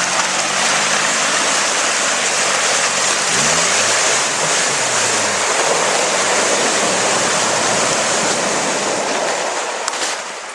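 Loud, steady rushing noise with a Suzuki Samurai 4x4's engine faintly underneath as it drives off-road down a muddy track; the engine's revs rise and fall about halfway through.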